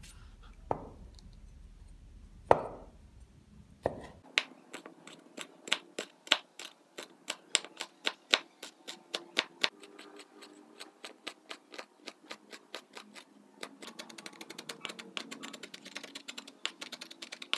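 Steel cleaver chopping stacked red chillies on a wooden cutting board. A few separate knocks come first. From about four seconds in there are steady chops about three a second, and near the end the chopping turns faster and denser as the strips are minced.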